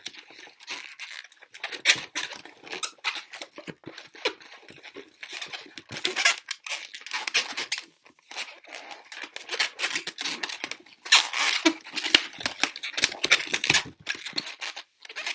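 A long latex modelling balloon being twisted and worked by hand into a balloon dog: rubber rubbing on rubber and fingers in irregular short bursts, busiest about three-quarters of the way in.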